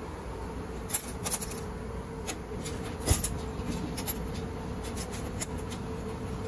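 Scattered sharp clicks and clacks of a stainless-steel draw latch being handled on a laundry dryer's access panel, the loudest about three seconds in, over a steady machinery hum.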